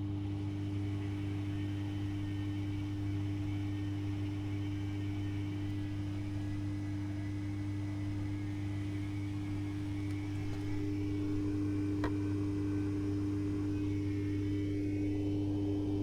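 Privileg Classic 30612 washing machine running with a steady electric hum, slightly louder a little after ten seconds in, with a single small tick about twelve seconds in.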